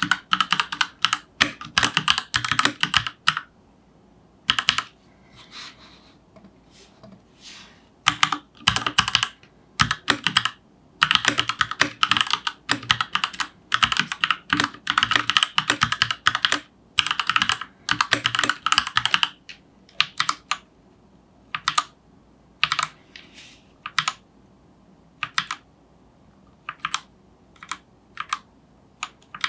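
Keychron K8 mechanical keyboard being typed on: quick runs of key clicks in bursts, thinning out to scattered single keystrokes over the last third.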